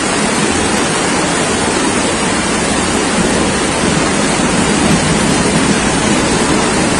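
Torrential rain and floodwater rushing down a street, a loud, steady rushing noise with no let-up.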